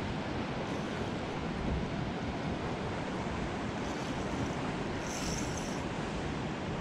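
Steady wind noise on the microphone over the wash of sea water around the boat.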